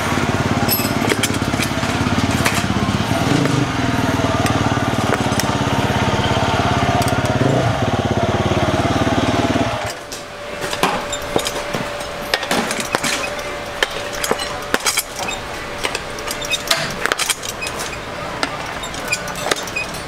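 A motorcycle engine running steadily, cutting off suddenly about ten seconds in. After that, steel tire irons clink and scrape against a dirt-bike wheel rim as the tyre is levered on.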